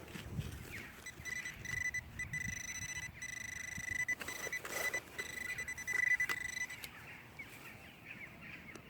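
Metal detector giving one steady high-pitched tone for about five and a half seconds as it is held over a buried target, which turns out to be a coin. A few faint clicks and rustles are heard under it.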